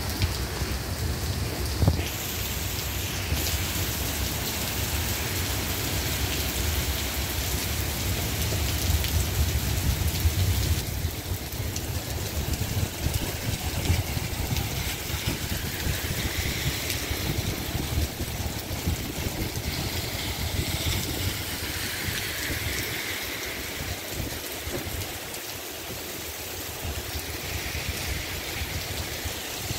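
Heavy rain pouring onto a wet street, with cars passing over the wet pavement.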